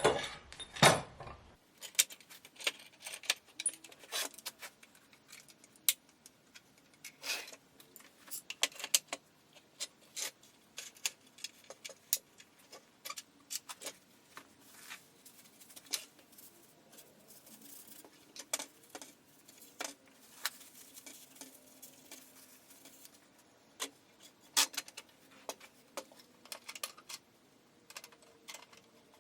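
Clamps being fitted and tightened on a freshly glued wooden rail of a recliner base: irregular metallic clicks, clinks and taps.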